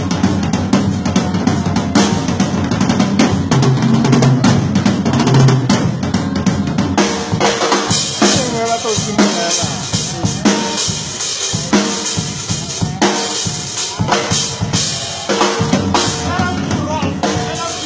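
Drum kit played in a busy groove, with closely packed kick, snare and rim-shot hits over backing music.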